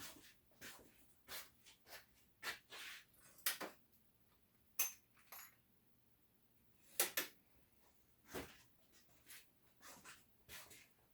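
Scattered light clicks and knocks from a person moving about and handling tools, with a louder double knock about seven seconds in.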